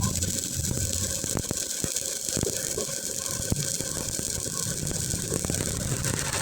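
Electric arc welding a finishing bead: a steady crackling hiss with many small pops.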